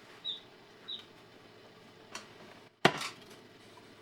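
Knife cutting cucumbers into spears on a cutting board: a few scattered knocks of the blade on the board, the loudest a little under three seconds in.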